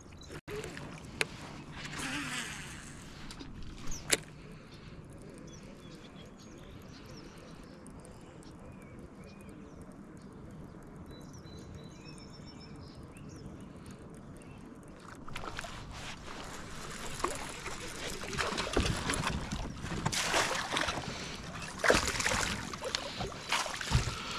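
Water and hull sounds from a fishing kayak: a few sharp clicks early, a quiet stretch with faint high chirps, then water sloshing with knocks and rustles for the last several seconds.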